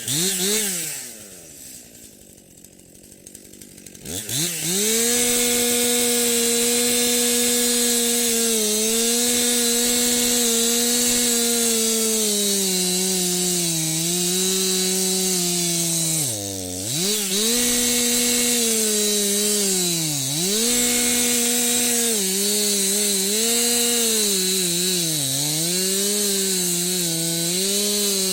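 Two-stroke chainsaw: a short rev, then a few seconds running low and quiet, then from about four seconds in held at full throttle with a high, steady whine. Its pitch sags a few times, most deeply about two-thirds of the way through, as the engine is loaded or eased off.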